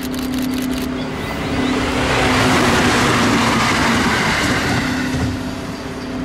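A vehicle passing close by: a steady hum under a rushing noise that swells about two seconds in and eases off near the end, with a few quick high clicks in the first second.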